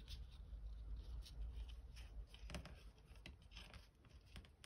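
Faint rustling and light scratching of paper card stock and twine being handled as a knot is pulled tighter, a few soft clicks among it, over a low steady hum.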